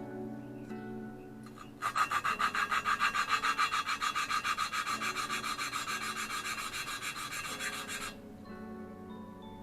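Valve lapping on a KA24DE cylinder head: a hand lapping tool twisted back and forth grinds a valve against its seat with lapping compound. It makes a gritty rasping in quick strokes, several a second, starting about two seconds in and stopping about eight seconds in. Instrumental background music plays throughout.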